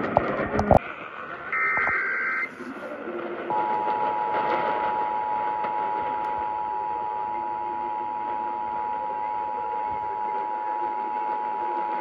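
AM radio loudspeaker playing an Emergency Alert System test: after hissy static with a few clicks in the first second, a one-second burst of EAS header data tones comes about 1.5 s in. From about 3.5 s in, the two-tone EAS attention signal (853 and 960 Hz together) sounds steadily and cuts off sharply at the end.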